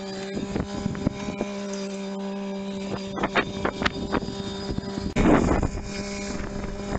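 Compact farm tractor's engine running at a steady pitch, picked up from a distance by a trail camera's microphone, with a few light clicks. About five seconds in, wind buffets the microphone loudly.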